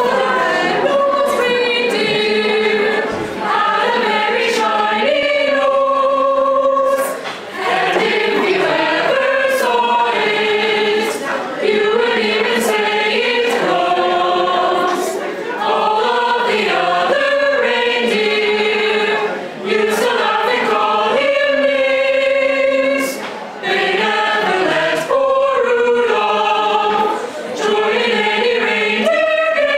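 A mixed choir of male and female voices singing a cappella in harmony, holding long notes, with brief pauses between phrases.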